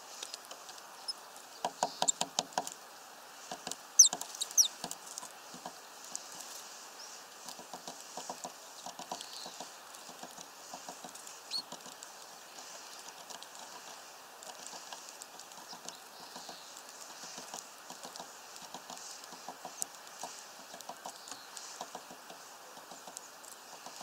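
Eurasian blue tit pecking at a mesh-netted fat ball feeder: irregular runs of light taps and clicks, loudest around two and four seconds in, with a few short high chirps around four seconds in.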